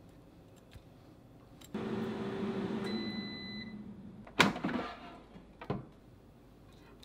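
Countertop air fryer's fan motor starts up with a steady hum. A single electronic beep sounds about halfway in and the fan winds down. Then comes a loud clack with a short rattle, and a lighter knock near the end.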